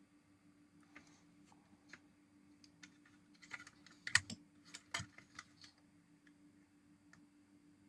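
Scattered light clicks and taps of multimeter probes and small tools being handled on a circuit board, bunched together in the middle with the two loudest about four and five seconds in, over a faint steady hum.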